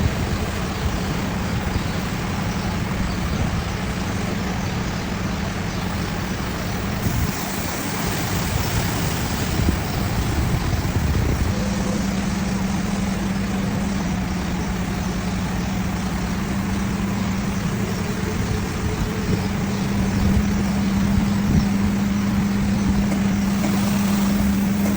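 Steady mechanical running noise of a vehicle in an automatic bus wash, with a constant low hum that gets stronger about halfway through and a hiss above it.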